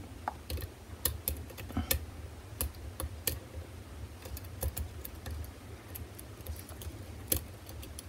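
Faint, irregular light metallic clicks of a hook pick working the pins and warding inside a Euro cylinder lock under tension during single-pin picking. The clearest click comes near the end.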